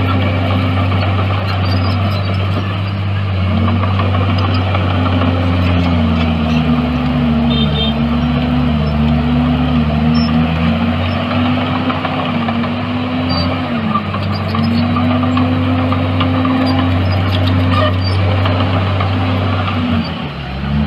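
Komatsu D61EX bulldozer's diesel engine running steadily under load, its pitch dipping and recovering several times around the middle.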